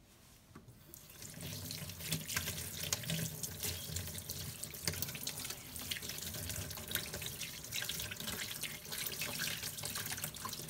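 Kitchen tap water running into a stainless steel sink and plastic bucket, starting about a second in, as hands rub and rinse a freshly scaled hilsa fish under the stream, with many small splashes.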